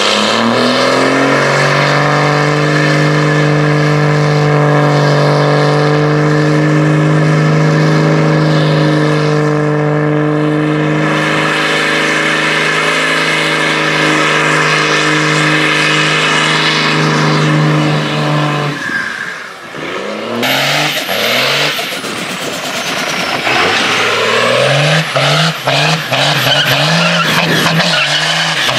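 Cummins diesel engine in a Dodge Ram pickup held at high revs during a burnout, a steady high drone with the rear tyres spinning. It drops away near two-thirds of the way through, then a second Cummins-powered Dodge Ram revs up in steps into another burnout and holds high.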